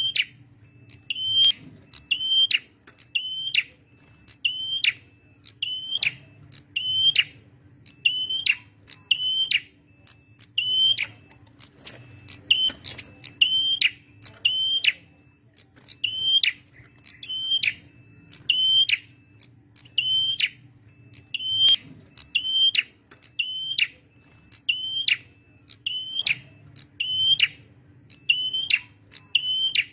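Male prenjak merah (a small Indonesian warbler) calling steadily, a sharp high note with a falling hook, repeated about one and a half times a second. A faint steady hum lies underneath.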